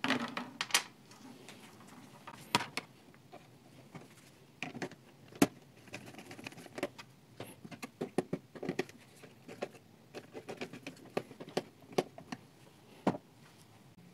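Irregular clicks, taps and rustles of gloved hands handling a stiff copper wire and fitting its ends into screw terminal blocks, with a few sharper knocks among them.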